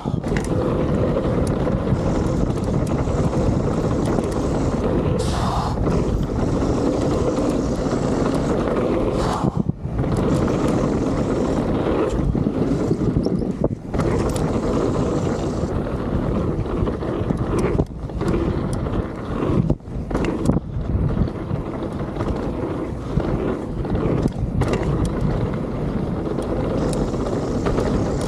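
Wind rushing over a helmet-mounted action camera's microphone, mixed with the rumble of a mountain bike's knobby tyres rolling fast over packed dirt trail. The noise runs on unbroken apart from several brief dips.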